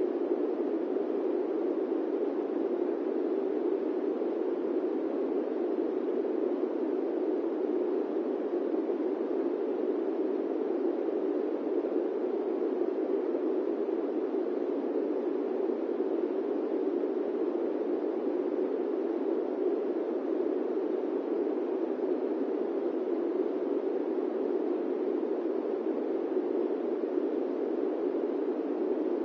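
Electric fan running with a steady, even whoosh, its noise deep and muffled rather than hissy, without change or pause.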